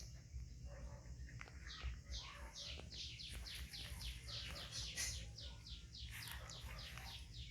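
An animal chirping: a quick series of short, high, falling chirps, about three a second, over a low steady rumble.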